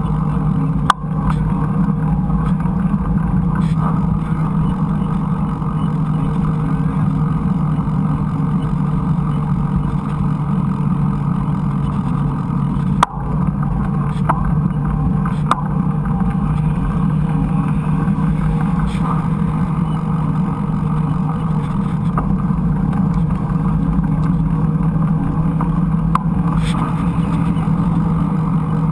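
Steady rumble of a mountain bike ride picked up by a bike-mounted action camera: wind and tyres on the trail, with a few sharp knocks as the bike hits bumps, the loudest about a second in and near the middle.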